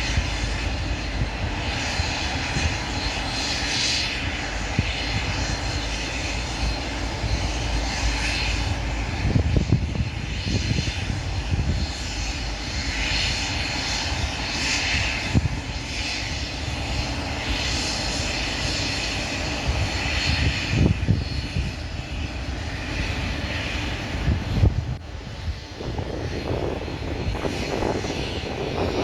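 Boeing 737-300F's CFM56 turbofan engines running at taxi power as the freighter taxis after landing, a steady jet hiss and rumble that swells and fades slightly. A few brief low thumps come through along the way.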